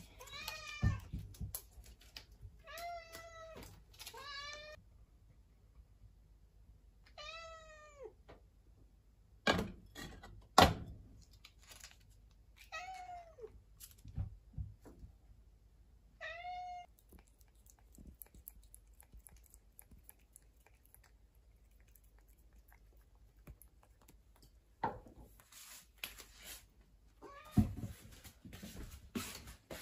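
Domestic cat meowing about six times in short, arching calls, demanding its meal. Between the meows come a few sharp knocks and clatters, the loudest about ten seconds in.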